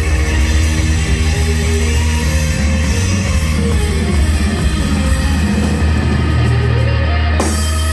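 Live rock band playing, with guitar out front over bass and drums.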